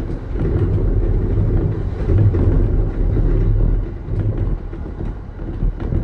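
Passenger train running on the rails, heard from inside the carriage: a steady low rumble with many small clicks from the wheels and track.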